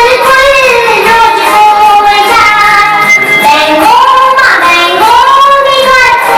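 A Bengali children's song: children's voices singing a melody over instrumental music.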